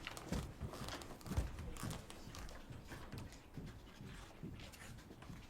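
Quiet room tone with a scattered series of light knocks and taps, the loudest about a second and a half in.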